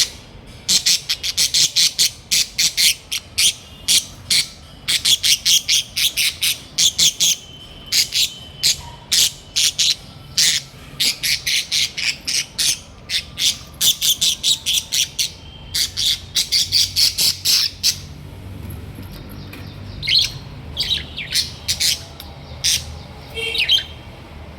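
Small pet parrots giving loud, shrill, squawking calls in quick runs of several a second, broken by short pauses. After about eighteen seconds the calls become sparser and fainter.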